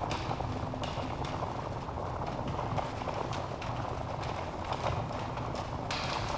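Wood fire burning in a fireplace: a steady low rush of flames with frequent sharp crackles and pops from the burning logs.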